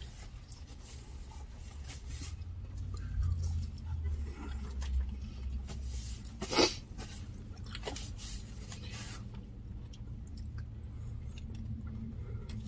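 Eating sounds: chewing and paper napkins rustling against a face and hands, with scattered short crackles and one brief louder rustle about six and a half seconds in. A low rumble runs underneath for a few seconds early in the stretch.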